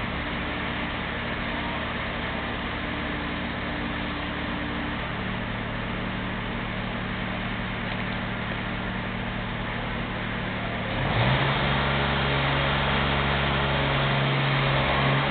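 An engine or motor running steadily with a low hum. About eleven seconds in it goes up in pitch and gets louder.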